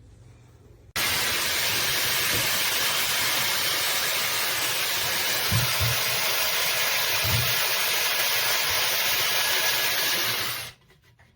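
Hot air styler brush blowing at full power: a steady, loud rush of air that switches on abruptly about a second in and cuts off near the end, with a couple of soft low knocks midway.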